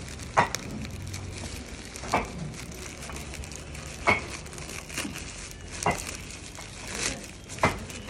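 Plastic wrapping on a camera box being torn and crinkled, with sharp crackles every second or so.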